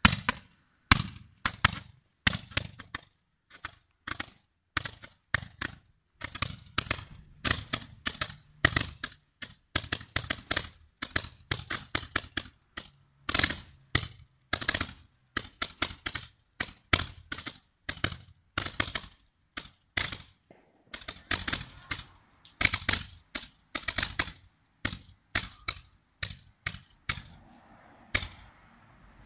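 Fireworks rockets going off: a rapid, irregular run of sharp bangs and cracks, several a second at times, that stops shortly before the end.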